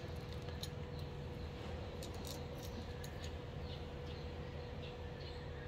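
Faint light clicks of small machine screws and an electrical outlet being picked up and handled, over a steady low hum with a faint steady whine.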